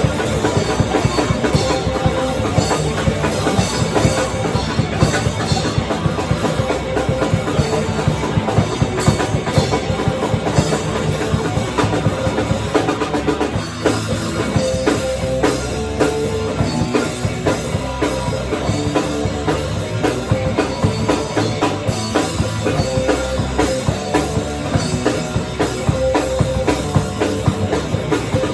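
Loud live rock band playing, with a drum kit prominent: steady dense playing with constant drum strikes and a short drop in level about halfway through.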